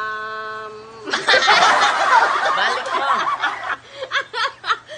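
A voice holds one drawn-out note for about a second, then a woman and children break into loud laughter and giggling that dies down into short chuckles near the end.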